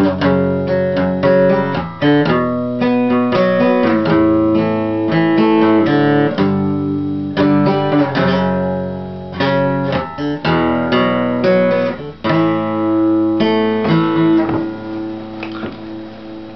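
Acoustic guitar strummed in chords, with no voice, the strokes repeating steadily; near the end the playing thins out and the chord fades.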